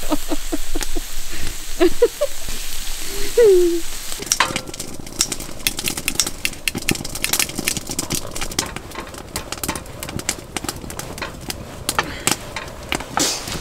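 Meat frying in a hot pan: a steady sizzle, breaking about four seconds in into dense spitting and crackling.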